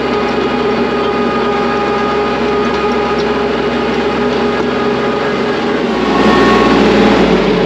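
Kubota tractor's diesel engine running steadily under way, growing louder with more low rumble about six seconds in.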